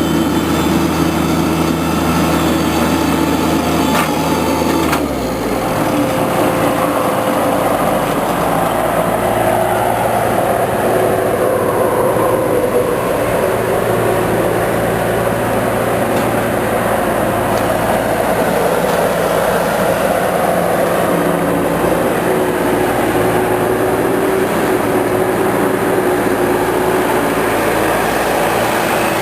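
An engine running steadily. About five seconds in, it drops to a lower speed and runs on there.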